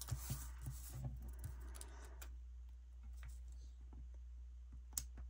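Faint rustling and light taps of a paper sticker strip being handled and pressed onto a planner page, with one sharp click near the end, over a low steady hum.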